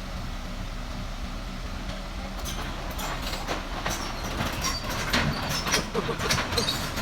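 Excavator running with a steady low engine rumble. About two and a half seconds in, a rapid series of metallic clanks and clicks starts and continues, with brief squeaks near the end.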